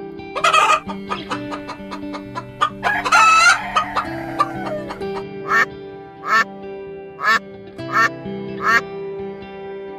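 Background music with a steady melody of held notes, over bird calls: a short squawk just after the start, a rooster crowing about three seconds in, then a run of short honking calls repeated a little faster than once a second.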